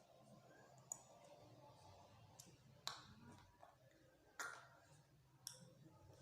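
Four faint, sharp clicks at irregular intervals over quiet room tone.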